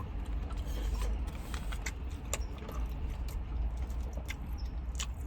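Close-up chewing of a mouthful of chicken sandwich, with many small wet mouth clicks and smacks, over a steady low rumble.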